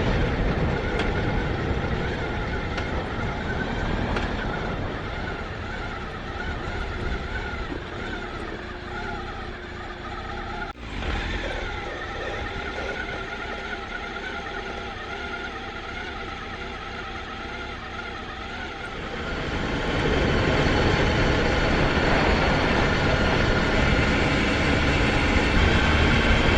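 Motorcycle running while riding on the road, engine note wavering over wind and road noise. There is a brief sharp break about eleven seconds in, and the noise grows louder from about twenty seconds.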